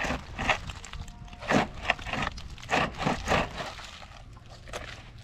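Wooden formwork boards being knocked and pried off a newly cast concrete lintel: a run of irregular wooden knocks and scrapes over the first three seconds or so, then quieter.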